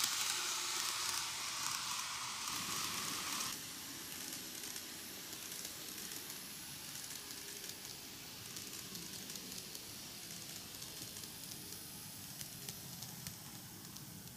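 N-gauge model train running on plastic track: a steady hiss of small wheels rolling with fine clicks, which drops off sharply about three and a half seconds in as the last coaches move away, leaving a faint crackly hiss with scattered ticks as the locomotive comes round the curve.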